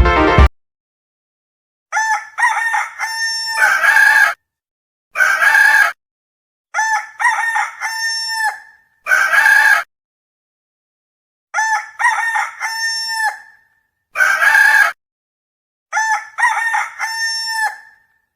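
Rooster crowing cock-a-doodle-doo about four times, each crow separated by a short silence.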